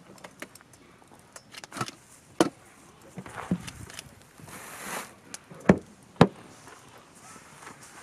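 Campfire of split firewood crackling in a fire pit, with irregular small snaps and three loud pops, about two and a half seconds in and twice near six seconds. A brief hiss comes just past the middle.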